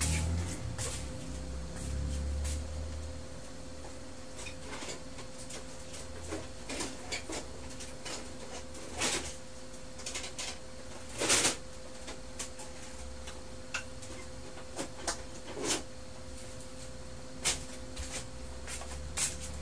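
Scattered clicks, knocks and light clatters of small parts and tools being handled and moved about, the loudest about eleven seconds in, over a steady faint hum.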